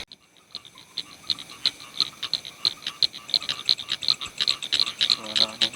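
Frogs calling at night: short high calls repeating about three times a second, with a lower croak near the end.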